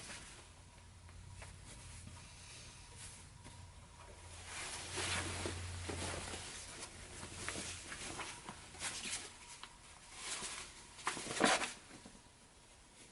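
Fabric rustling and swishing as a sewn jacket is handled and pulled through, in irregular bursts, the loudest near the end.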